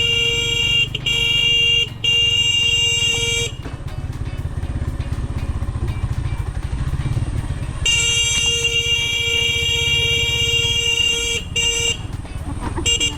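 Motorcycle engine running under load on a rough road, with a vehicle horn sounded over it. There are three blasts in the first three and a half seconds, one long blast of about three and a half seconds starting around eight seconds in, and short beeps near the end.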